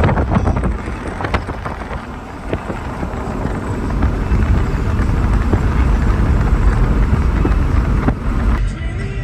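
Car on the move, a steady low rumble of road and wind noise, with a few short clicks and knocks in the first second or so.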